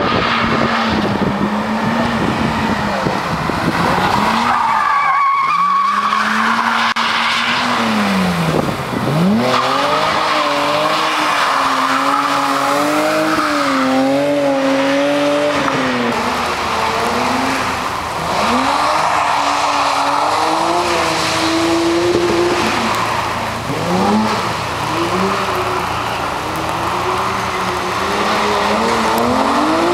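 BMW E30 325's straight-six engine revving hard while drifting, its pitch climbing and dropping again and again, with tyres squealing and skidding on the asphalt.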